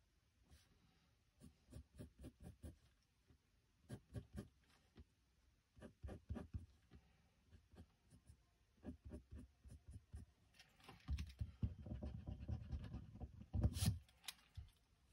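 Pencil scratching on sketchbook paper in quiet groups of short strokes as a drawing is sketched. From about eleven seconds in, a louder spell of hand rubbing across the page, ending in a sharper knock.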